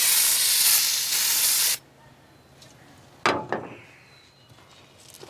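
Aerosol can of carburetor intake cleaner spraying in a loud, steady hiss that cuts off suddenly a little under two seconds in. About three seconds in, a single short, sharp sound.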